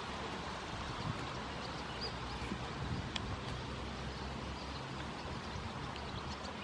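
Steady outdoor background noise with a low, uneven rumble and a few faint clicks.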